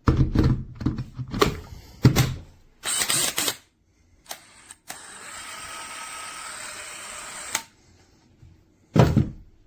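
Clicks and clunks of a cordless hammer drill being handled, in a quick cluster at the start. Midway comes a steady sound lasting about two and a half seconds, and there is a single thump near the end.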